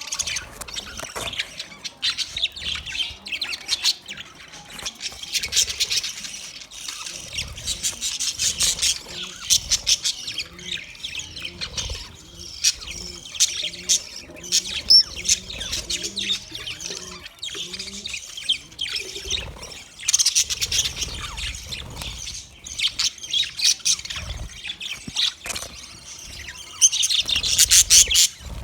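Budgerigars chirping and chattering continuously: a dense, fast, high-pitched warble of chirps and squawks in bouts with brief lulls.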